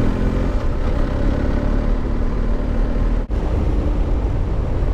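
Motorcycle engine running under way, with heavy wind rush over the rider's microphone; the sound drops out for an instant just after three seconds in.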